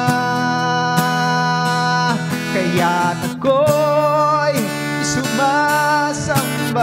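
A man singing several long, wavering wordless 'ooh' notes over a strummed acoustic guitar.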